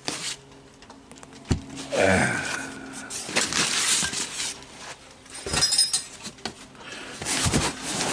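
Handling and fitting together a used boat rear seat and its loose parts: an irregular run of knocks, scrapes and rattles, with a short falling creak about two seconds in.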